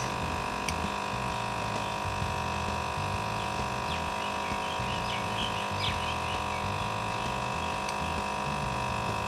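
Induction heater humming steadily with a high whine while melting gold particles in a graphite crucible, with a few faint crackles about halfway through.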